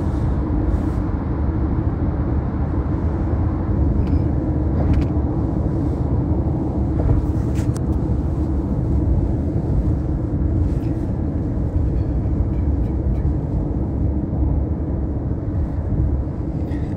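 Steady low rumble of road and engine noise heard from inside a moving car's cabin, with a few faint clicks.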